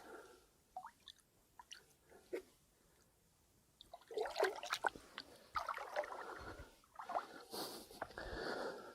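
Water splashing and dribbling in irregular bursts as a freshly landed ide is handled, with a few small clicks and knocks first and the busiest splashing from about four seconds in.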